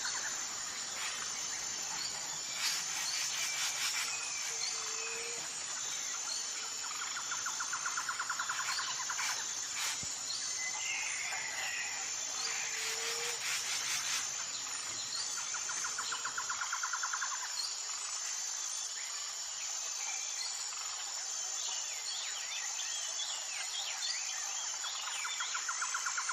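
Nature soundscape of insects and birds: a steady high-pitched shrill of insects, rapid pulsing trills that come back every several seconds, and birds chirping with short calls, busiest in the second half.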